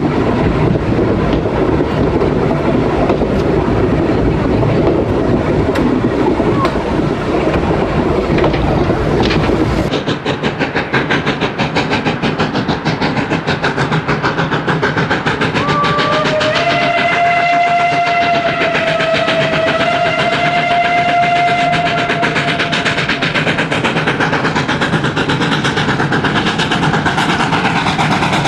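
Heavy rumble and rushing noise of a steam train heard while riding on it. About ten seconds in, this gives way to a steam locomotive heard from beside the line as it approaches, chuffing rapidly, with one long steam-whistle blast held for several seconds in the middle.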